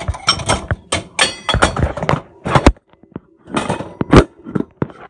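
A rapid run of knocks, thuds and clatter from objects being handled in a kitchen, with a brief metallic clink about a second in.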